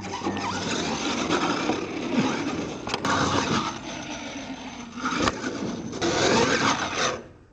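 R/C monster truck driving and jumping on a dirt course with ramps: a steady din of its drivetrain and tires scrabbling on dirt, with two sharp knocks about three and five seconds in as it lands. The sound cuts off abruptly near the end.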